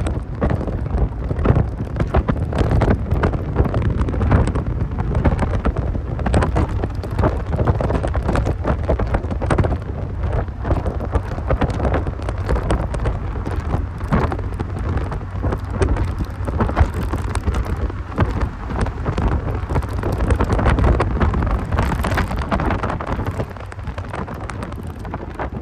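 Wind buffeting and crackling on the microphone while a 1990 Mazda Miata drives, over a steady low rumble of the car on the move.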